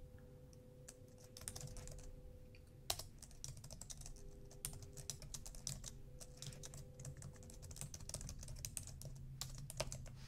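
Computer keyboard typing: a run of quiet, irregular key clicks, with one sharper click about three seconds in.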